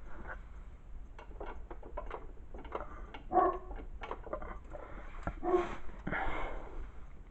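St. Bernard barking, two short deep barks about three and a half and five and a half seconds in, among scattered light clicks and knocks.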